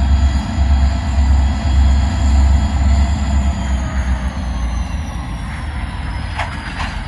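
Norfolk Southern diesel locomotives leading a freight train of tank cars at slow speed: a deep, uneven rumble with a high whine that slowly falls in pitch. Two short knocks come near the end.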